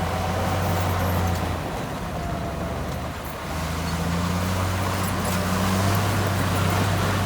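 Diesel engine of heavy earthmoving equipment running steadily, easing off about a second and a half in and picking up again at about three and a half seconds.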